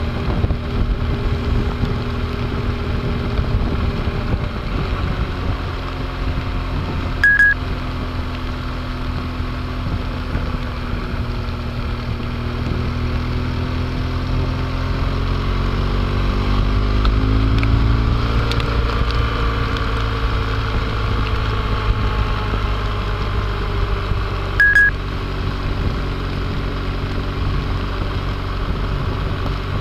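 Motorcycle engine running while riding on a wet road, its pitch rising and then falling again around the middle, under steady wind noise. A short high beep sounds twice, about seven seconds in and near the end.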